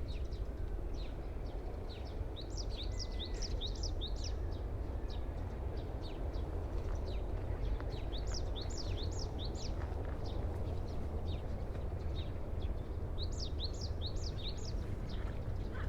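A songbird singing a rapid phrase of high, sweeping notes three times, about five seconds apart, with scattered single chirps between. A steady low rumble runs underneath.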